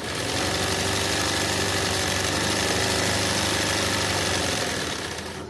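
Sewing machine running fast in one steady burst, stitching hand-guided embroidery through hooped fabric. It comes up to speed at once and winds down near the end.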